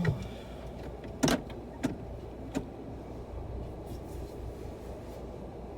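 Low, steady rumble inside a car, broken by three short sharp clicks or knocks about a second, two seconds and two and a half seconds in; the first click is the loudest.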